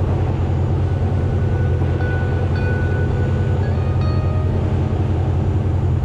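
A motorboat's engine running steadily under way with a deep drone, with water rushing in its wake. It cuts off suddenly at the end.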